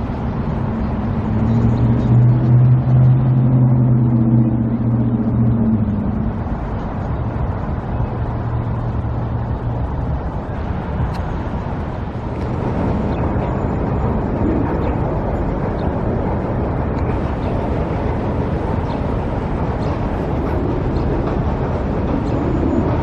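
Road traffic. A heavy vehicle's engine hums loudly and steadily for the first several seconds, fading out about ten seconds in, over a continuous wash of passing cars.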